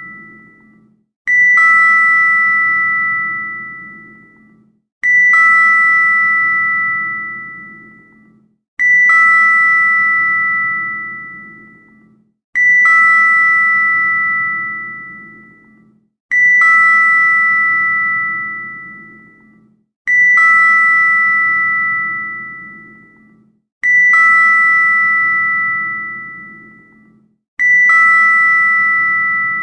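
Elevator arrival bell chiming eight times at even intervals of about four seconds. Each chime is a quick two-note ding, high then lower, that rings out and fades over about three seconds.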